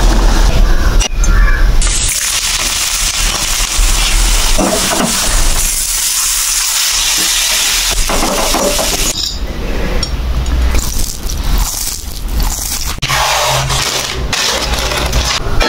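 Instant-noodle cooking sounds in quick succession. First a fork stirs noodles in bubbling water in a steel saucepan, then a fork tosses noodles in a frying pan over a steady hiss. Near the end, plastic noodle packets crinkle and drop onto a table.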